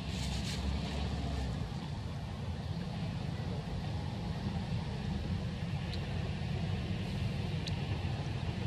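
Steady low outdoor rumble, with a few faint, brief high ticks or chirps in the second half.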